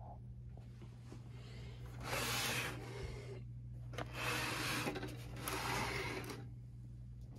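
A hand rubbing and sliding over the plastic casing of an HP LaserJet 1022 laser printer, three rough rustling bursts of about a second each, over a steady low hum.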